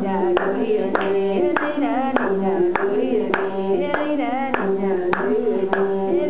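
Tuareg women singing and clapping a steady beat, about one clap every 0.6 s, over an imzad, the single-string bowed fiddle, holding long notes.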